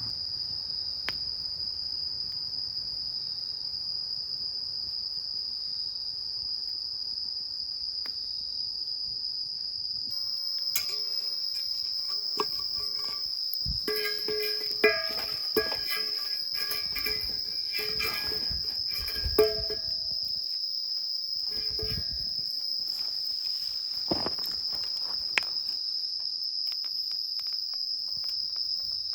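Autumn insects, crickets, chirring in a steady high continuous drone. Through the middle there is a run of knocks and short ringing clinks from things being handled.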